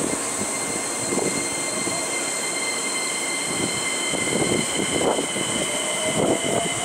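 Keikyu New 1000 series electric train's Siemens IGBT VVVF inverter whining as the train creeps along the platform to correct its stopping position. Several steady high tones run together, and a lower tone comes in and rises slightly near the end, under low rumbling and knocks.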